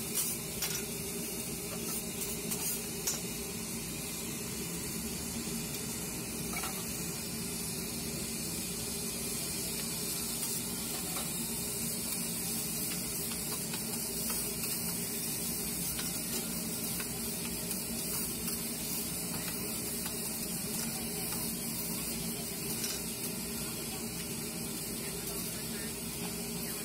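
Egg fried rice sizzling steadily on a large flat iron griddle while two metal spatulas scrape, chop and toss it, the blades clinking against the plate a few times in the first few seconds.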